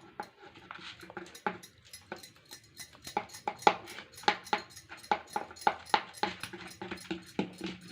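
Boiled egg being rubbed over a hand grater: a run of short, even grating strokes, about two to three a second.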